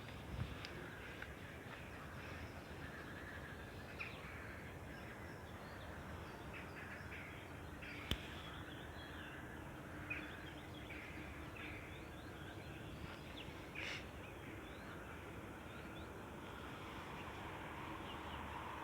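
Birds calling with short, scattered chirps over a steady outdoor background noise, with a single sharp click about eight seconds in.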